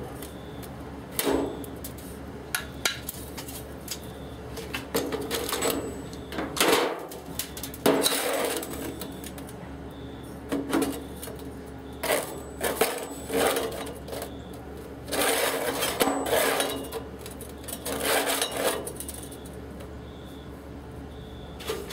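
Irregular metallic clanks and rattles of steel parts and tools being handled on a steel welding table, a dozen or so short sharp hits and scrapes, some lasting about a second, over a steady low hum.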